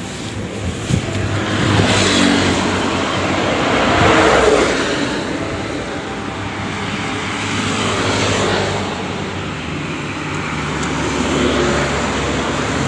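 Road traffic: several vehicles pass one after another, each swelling and fading, over a steady low hum.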